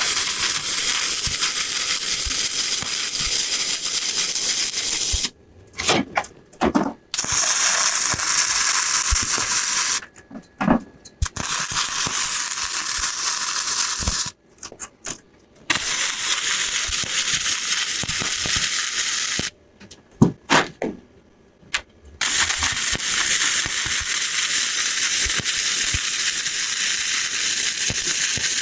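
Wire-feed welder arcing on steel exhaust pipe: five runs of steady crackling hiss, each three to six seconds long, that start and stop abruptly, with light clicks and taps in the short pauses between them.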